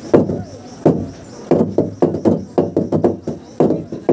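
Ao Naga log drum (sungkong), a huge hollowed tree trunk, beaten by several people with wooden beaters. A few separate hollow wooden knocks come first, then from about a second and a half in a fast run of overlapping strikes, several a second.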